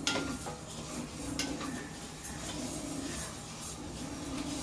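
Dry moong dal being stirred and scraped with a spatula in a stainless steel kadai, the lentils rustling against the metal as they roast toward golden. The spatula knocks sharply on the pan at the start and again about a second and a half in.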